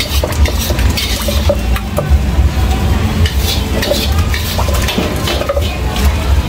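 Wooden pestle knocking and grinding in a large wooden mortar, with a metal spoon clinking against it: irregular knocks several times a second over a steady low hum.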